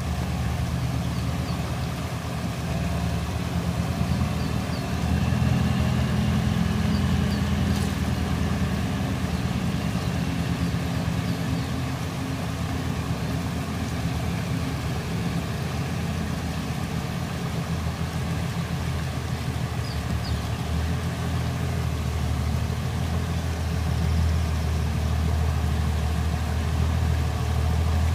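Diesel engine of a heavy truck loaded with sugarcane, running at low revs as it creeps forward. It makes a steady low rumble over the rush of a shallow, rocky river.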